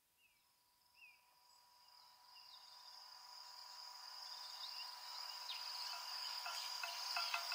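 Insect-like high steady trill with a steady lower hum, fading in from silence, with a few short falling chirps in the first couple of seconds. About six seconds in, short repeated struck notes of the downtempo track begin.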